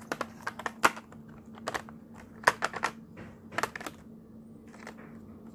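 Clear plastic blister trays and cellophane wrap being handled, crackling and clicking in short clusters of sharp crinkles about once a second. A faint steady hum runs underneath.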